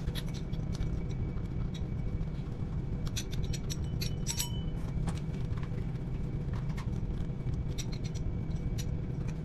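Small metallic clicks and scrapes as a push shower hose and its nut are handled and fitted onto a chrome angle valve, clustered a few seconds in, over a steady low rumble.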